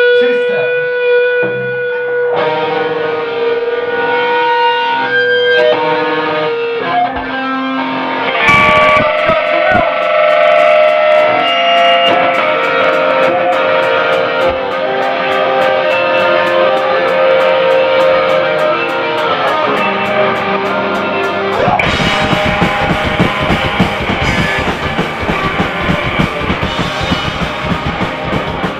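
Live rock band playing. An electric guitar through effects plays sustained, ringing notes, steady high ticks from the drums join about eight seconds in, and about three-quarters of the way through the full band comes in with drums and distorted guitar.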